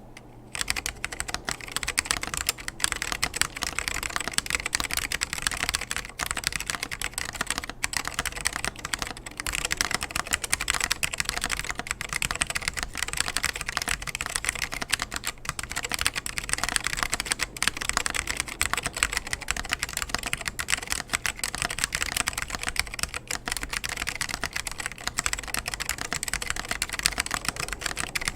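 Custom mechanical keyboard with salmon Alps switches, cleaned and with lubed springs, in a polycarbonate bottom case with Apple keycaps, being typed on steadily and fast. The stream of keystrokes starts about half a second in.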